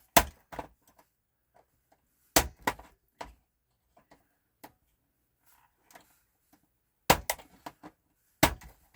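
Sharp knocks and clicks of a screwdriver and a PS4 console's casing being handled while a stubborn screw is worked loose. They come in short clusters right at the start, about two and a half seconds in, and again about seven and eight and a half seconds in.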